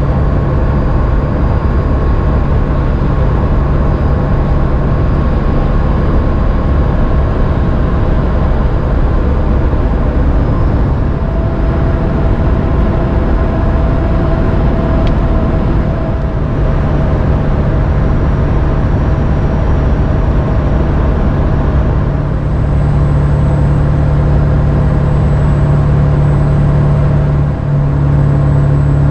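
The 7.3-litre turbo-diesel V8 of a 2000 Ford F-350 Super Duty dually pickup running steadily at highway cruising speed, heard from inside the cab along with tyre and road noise.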